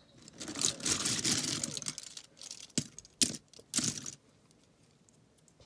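Loose plastic Lego minifigures and parts clattering and rustling as a hand digs through a full drawer of them: a dense rattle for about two seconds, then a few separate clicks and short rattles, stopping about four seconds in.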